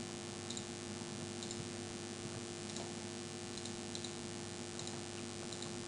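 Faint computer mouse clicks, a short tick about once a second as sketch lines are selected one by one, over a steady low hum and hiss.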